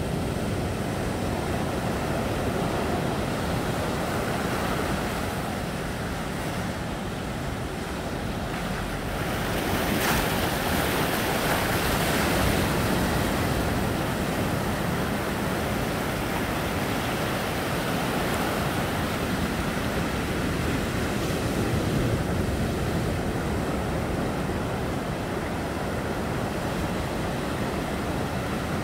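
Ocean surf breaking and washing up a sandy shore, a continuous rushing. A bigger wave crashes about ten seconds in, and the rush swells again a little past twenty seconds.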